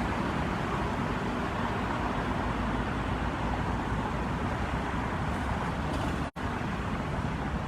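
Steady roar of road traffic, an even noise with no distinct events, cutting out for an instant about six seconds in.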